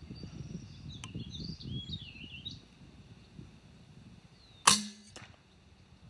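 A single shot from a PCP air rifle a little after the middle: one sharp, loud crack, then a fainter knock about half a second later. Small birds chirp faintly before the shot.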